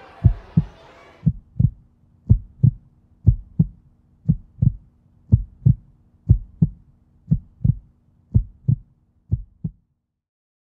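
Heartbeat sound effect: paired lub-dub thumps, about one pair a second, ten times, stopping shortly before the end. For the first second or so, crowd and children's chatter runs underneath, then cuts out.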